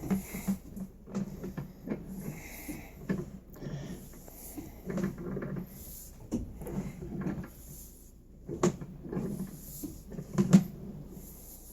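Irregular clicks and clunks of sewer inspection camera gear as the push cable is pulled back through the pipe, over a low steady hum.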